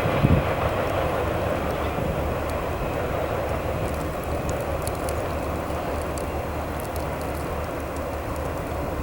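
Train running past: a steady noise with a low engine hum underneath and a short thump about a third of a second in.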